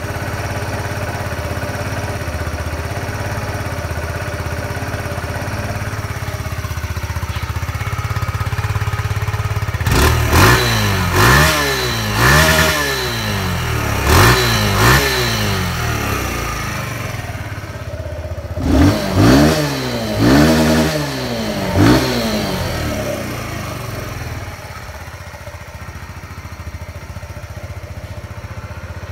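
Kawasaki Z125 Pro's 125 cc single-cylinder four-stroke engine idling, then revved in two groups of short throttle blips, each rising and falling in pitch, before settling back to a steady idle.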